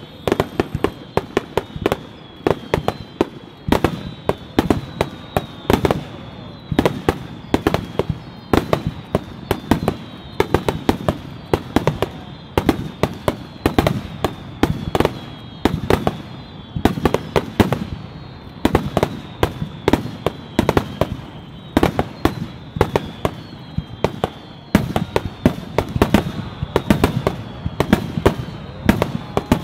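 Fireworks finale barrage: aerial shells bursting in rapid succession, several bangs a second without let-up, with a faint high whistling tone running underneath.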